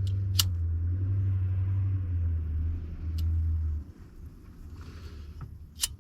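A steady low hum, engine-like, that cuts off suddenly about four seconds in, with three short sharp clicks scattered through.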